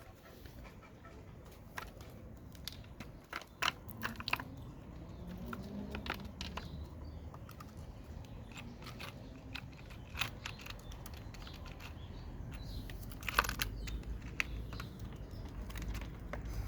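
Small tools and metal parts in a toolbox clicking and rattling as they are picked through, in light irregular ticks, with a louder clatter about three-quarters of the way through.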